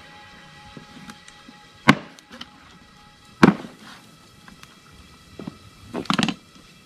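Large kitchen knife chopping raw chicken back on a cutting board: three sharp chops spread over several seconds, the last a quick double knock near the end.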